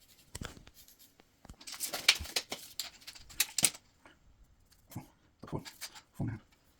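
Handling noise from measuring and marking on a wall: scattered clicks, a couple of seconds of quick scraping strokes in the middle, then a few soft knocks near the end.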